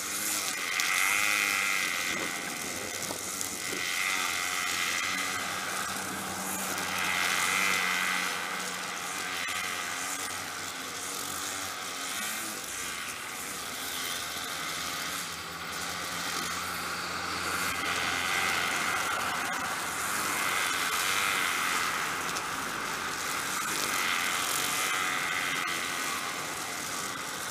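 String trimmers cutting tall grass, a steady buzz that swells and eases every few seconds.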